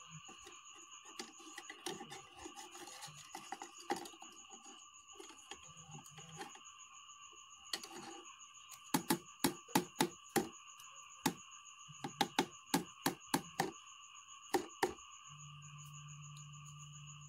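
Plastic spoon clicking and knocking against a plastic tub while urea fertiliser is stirred into aqua regia to neutralise its excess acid; the clicks come in a quick run of about four a second in the middle. A steady high whine sounds underneath throughout.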